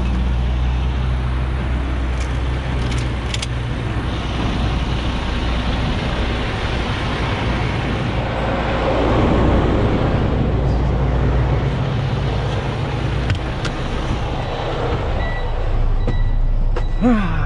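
Freightliner 122SD dump truck's diesel engine idling steadily, with a few clicks and knocks near the end.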